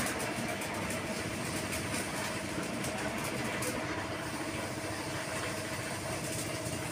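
Steady background hum of a running vehicle engine, with no distinct events.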